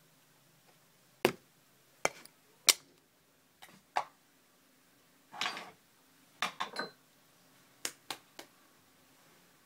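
About a dozen sharp clicks and knocks of small objects being handled, in scattered single strikes and quick pairs, with a short rustle a little past the middle.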